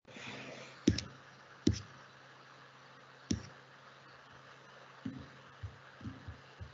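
A few sharp clicks: three louder ones spread over the first half, then a quicker run of five softer clicks near the end, over a faint steady low hum.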